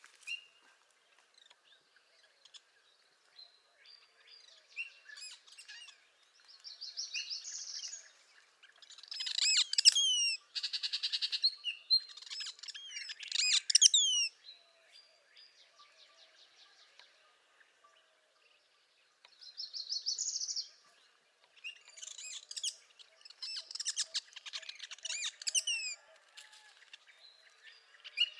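Songbirds singing in spring, more than one kind, including the buzzy song of a northern parula. The phrases come in bursts with a quieter stretch about halfway through.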